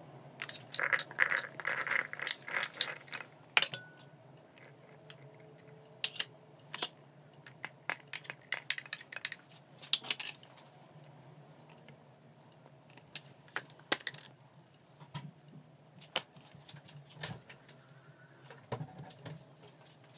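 Chickpeas, garlic and onion pieces dropping into a plastic mini-chopper bowl, making clusters of small taps and clicks. A faint low hum lies underneath.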